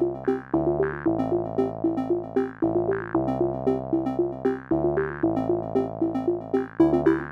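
Background electronic synthesizer music: a quick repeating pattern of plucked-sounding notes over sustained chords that change every couple of seconds.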